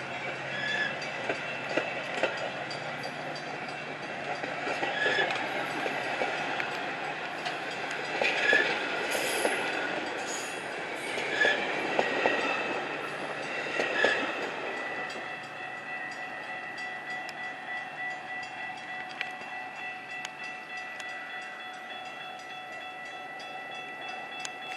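Metra commuter train moving through the station on the rails: a steady rumble with wheel clicks and knocks over the rail joints, louder in the first half and easing off after about fifteen seconds.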